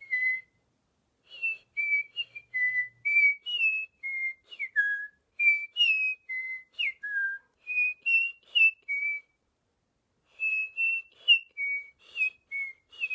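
A person whistling an imitation of the eastern meadowlark's song: a run of short, clear notes, several sliding downward, in two phrases with a pause of about a second some nine seconds in.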